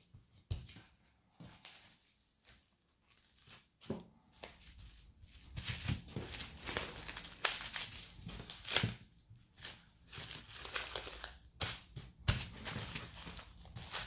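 Clear plastic wrap crinkling as hands fold it around a slab of pastry dough and press the dough flat. Faint scattered rustles at first, then dense crinkling with sharp crackles from about four seconds in.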